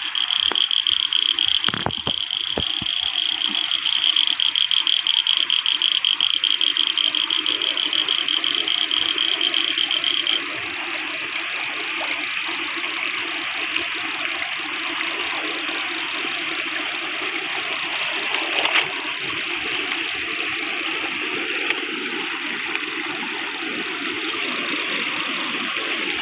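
Running water gushing and splashing steadily through a small field ditch at a woven bamboo fish trap. A high, fast-pulsing trill sounds over it for the first ten seconds or so, then stops.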